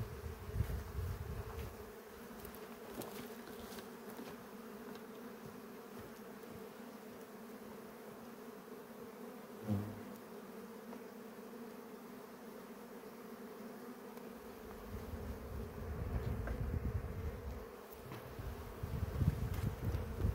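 Honeybees buzzing around an open hive, a steady hum throughout. Low rumbling comes and goes at the start and again over the last several seconds, with one short thump about ten seconds in.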